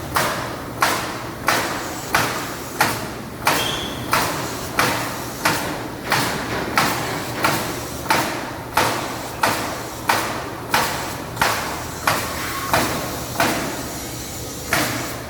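Robot-mounted nail gun firing nails into wooden truck-bed boards in a steady rhythm, about three shots every two seconds, each a sharp crack with a short fading tail. There is one longer pause near the end before the next shot.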